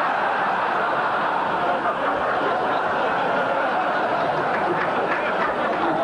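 A large dinner audience laughing together at a joke, a dense, steady wash of laughter that holds for several seconds.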